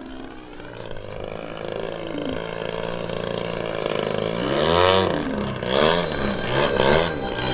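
RC model airplane's motor and propeller in flight, growing louder as it comes near. About five seconds in it rises and falls in pitch several times as the throttle changes and the plane passes by.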